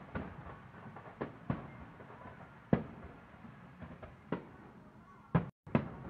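Distant aerial fireworks shells bursting: about eight booms at uneven intervals, the loudest about two and three-quarter seconds and five and a half seconds in. The sound drops out for an instant between the last two loud bangs.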